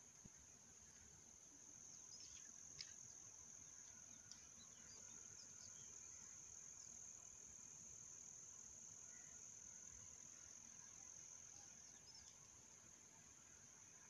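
Faint, steady high-pitched chirring of insects, with a few faint short chirps.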